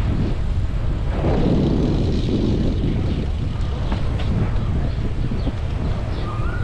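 Wind rumbling against the microphone of a camera riding on a moving bicycle, mixed with the hum of tyres on the road. It swells for a couple of seconds about a second in.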